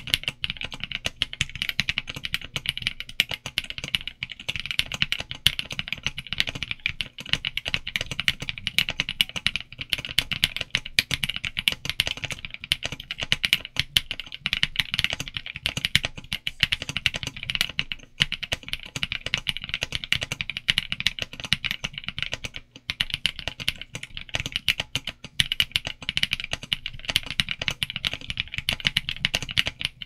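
Continuous fast typing on a MyKeyClub MKC75 mechanical keyboard, built plateless with a case sheet and PCB sheet, with Kailh Cream switches and double-shot ABS keycaps: a dense, unbroken run of keystrokes.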